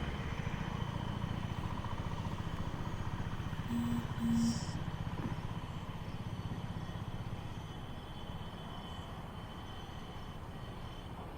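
A motor vehicle's engine runs as a steady low, pulsing rumble that slowly fades away. About four seconds in come two short tones in quick succession.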